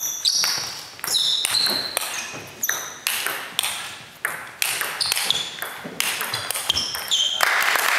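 Table tennis rally: the celluloid ball clicking back and forth off rackets and table in a quick, irregular rhythm, some hits followed by short high squeaks. Applause breaks out near the end as the point is won.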